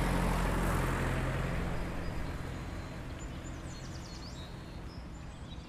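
Outdoor ambience: a steady wash of distant traffic with small birds chirping a few times in the second half. A low hum fades out over the first second or two.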